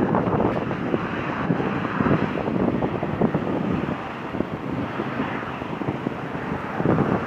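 Wind buffeting the microphone over the engine noise of an Airbus A330-300 airliner's Rolls-Royce Trent 700 jet engines on the runway.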